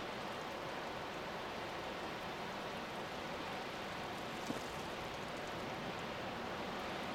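River water rushing steadily over rocky rapids, an even, unbroken wash.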